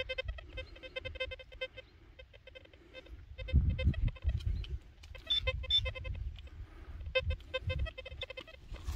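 Handheld metal-detecting pinpointer probe beeping in a rapid pulsing tone as it is worked through the dug hole, responding to metal in the soil. Dull thuds of the probe and hand against the earth are loudest near the middle.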